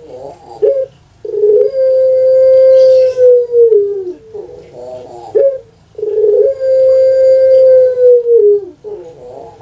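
Puter pelung (Barbary dove, Streptopelia risoria) cooing. It gives two long, drawn-out notes, each held steady and then falling at the end, with short rough 'kuk/geruk' notes before, between and after them.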